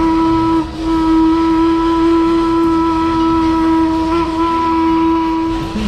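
Steam whistle of an 1899 Heisler geared steam locomotive, blowing one steady note. There is a brief break about half a second in, then a long blast that stops near the end.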